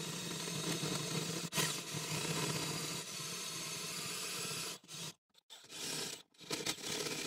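Cordless drill running under load, its cutter grinding into the rusty sheet-metal cab floor with a steady scraping whir. The trigger is let off about five seconds in, the drill gives a short burst, stops again, then runs on to the end.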